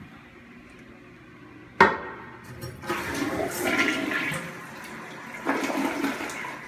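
A sharp clack about two seconds in as the toilet lid is raised, then the toilet flushing: rushing water from about three seconds in that surges twice and eases to a quieter steady run.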